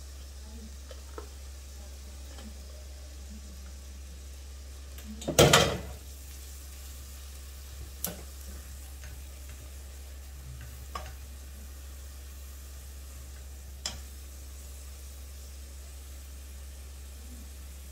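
Minced food frying in a ceramic-coated pot with a steady soft sizzle while a spatula stirs it. There is one loud clatter of a utensil about five and a half seconds in, then lighter knocks of the spatula against the pot three times.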